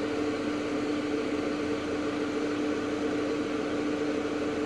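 A steady mechanical hum, two low tones held level over a faint even noise, from running machinery in or around the vehicle.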